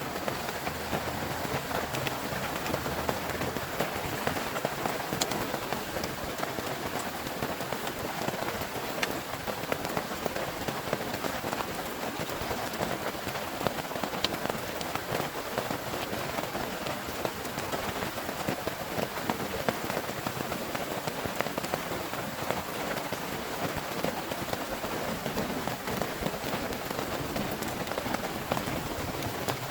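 Heavy rain falling steadily: a dense, even patter of drops, with a few sharper single drop hits standing out.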